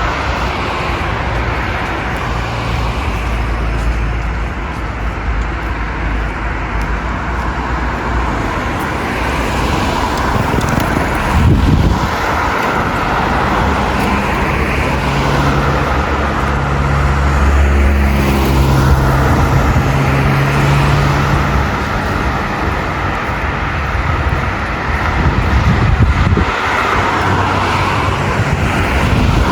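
Street traffic: cars running by in a steady wash of road noise, with a vehicle engine humming steadily for several seconds midway.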